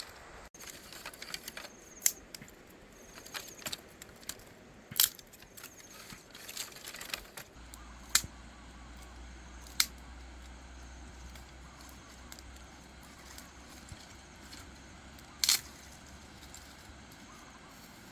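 Scattered sharp clicks and taps, a busy cluster in the first few seconds, then a handful of single loud ones spaced several seconds apart.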